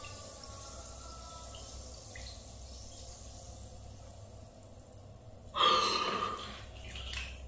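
Bath bomb dissolving in a basin of water: quiet dripping water sounds, with a short, louder rush of water about five and a half seconds in.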